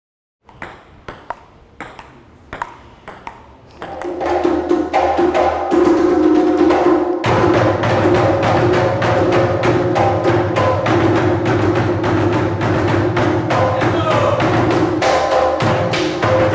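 Ghanaian drumming: sticks striking a tall rope-tuned drum, with hand drums alongside. Sparse separate strikes at first, then about four seconds in a dense, steady drumming rhythm starts and continues.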